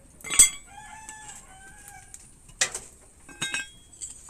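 A rooster crowing once, one drawn-out call lasting under two seconds. Around it are sharp clinks of metal tools: a loud one just before the crow and two softer ones after it.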